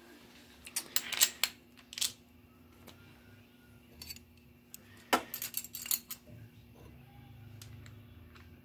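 Loose metal clutch parts and tools clinking and tapping in a few short bursts while a Brunswick A2 pinsetter's turret clutch is taken apart. The loudest cluster comes about five to six seconds in, over a faint steady hum.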